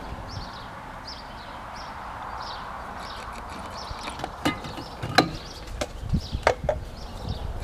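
A bird chirping over and over, about twice a second. In the second half come several sharp clicks and taps from hands handling parts and a cloth in the car's engine bay.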